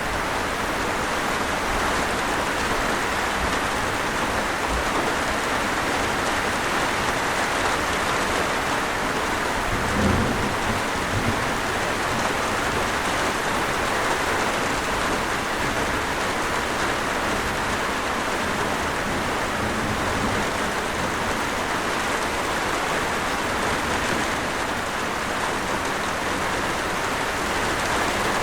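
Steady rain falling, an even hiss, with a short low rumble of thunder about ten seconds in.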